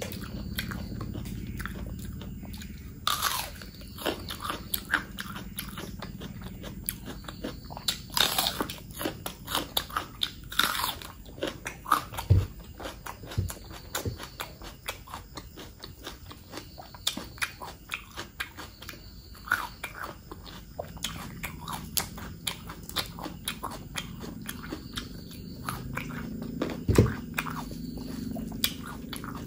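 Close-up chewing of a mouthful of mutton fat curry and rice: wet mouth clicks and smacks, coming at an irregular pace.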